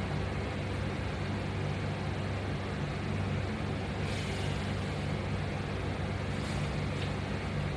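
A steady low hum with no speech, unchanged throughout, with a couple of faint brief rustles about four and six and a half seconds in.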